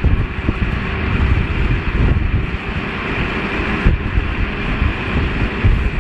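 Wind buffeting the microphone with a loud, irregular rumble, over the steady running of a heavy machine's engine, most likely an excavator.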